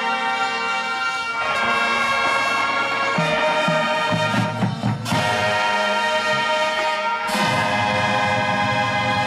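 High school marching band playing, its brass holding full chords that change every couple of seconds. There are two sharp crashes that ring on, about five and seven seconds in.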